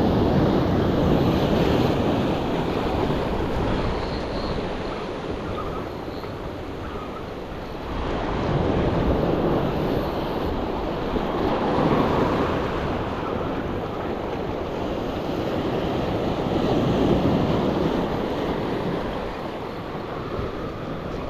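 Surf breaking and washing in, swelling and easing every few seconds, with wind buffeting the microphone.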